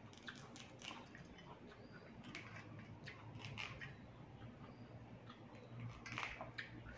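Fresh Siamese neem (sadao) sprigs being snapped and torn apart by hand: faint scattered crackles and leafy rustles, with the sharpest snaps around three and a half and six seconds in.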